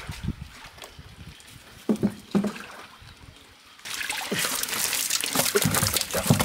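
Water sloshing as a hand net is worked in a concrete fish tank, with two louder sloshes about two seconds in. About four seconds in, loud, continuous splashing begins as fish thrash in water in a plastic tub.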